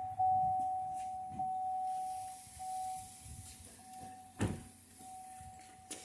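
A car's warning chime: one steady tone that restarts about every 1.2 seconds and slowly grows fainter. A single sharp knock comes about four and a half seconds in.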